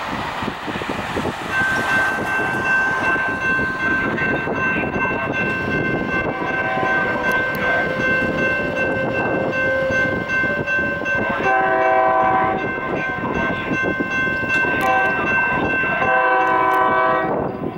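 SEPTA Silverliner IV electric multiple-unit train approaching with its running noise, a steady high warning tone held most of the way through. Its horn sounds two chord blasts, about a second and a half each, in the last third, as it nears the grade crossing by the station.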